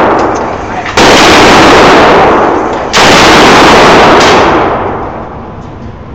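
Two shots from a Smith & Wesson M&P AR-15 rifle, about a second in and about two seconds later. Each is loud enough to overload the recording and rings on in the indoor range's echo.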